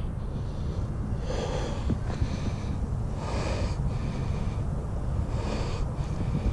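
A person breathing heavily: three breathy exhales about two seconds apart, over a steady low rumble of wind on the microphone.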